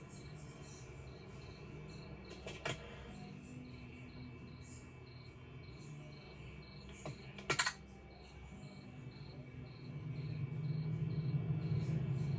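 Crickets chirping in a steady, even pulse, with a few short clicks a couple of seconds in and again about halfway. A low hum builds up over the last few seconds.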